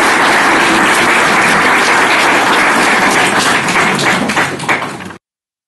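Audience applauding, a dense steady clatter of many hands clapping that cuts off abruptly near the end.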